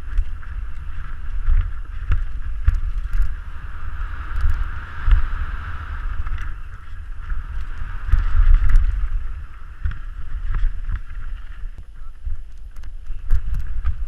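Wind buffeting a helmet-mounted camera's microphone during a fast mountain-bike descent, a heavy rumble over a steady hiss from the tyres rolling on dry dirt. Scattered clicks and rattles from the Canyon Strive bike over bumps.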